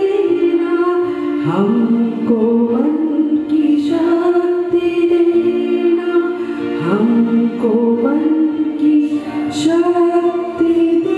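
Group of schoolchildren singing a Hindi prayer song together, in long held notes with slow upward slides between them.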